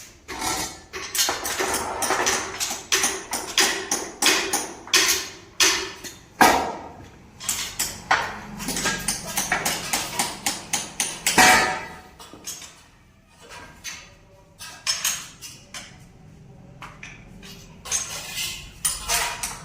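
Hammer blows and metal knocks on the parts of a power loom being taken apart: a quick run of strikes for the first six seconds or so, then scattered strikes, a quieter stretch a few seconds before the end, and more strikes near the end.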